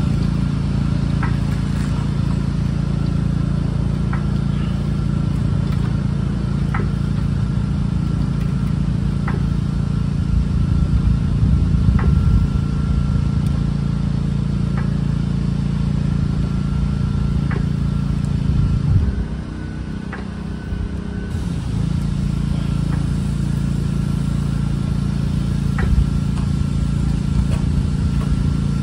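Daytona floor jack being pumped to lift a truck, with a short sharp click at each stroke, about one every two and a half to three seconds. A steady low drone runs underneath and drops away briefly about two-thirds of the way through.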